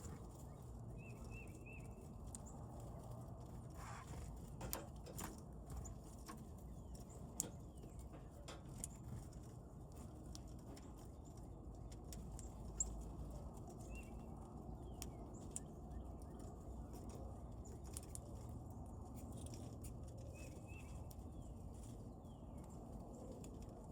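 Faint outdoor ambience at a bird feeder: small birds give brief high chirps now and then, and scattered sharp taps and knocks sound over a steady low rumble.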